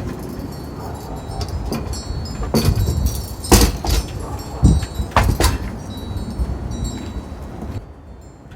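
Metal frame and panels of a folding camp cook station clanking and rattling as it is unfolded, with several sharp knocks and short high metallic ringing between them. It goes quieter shortly before the end.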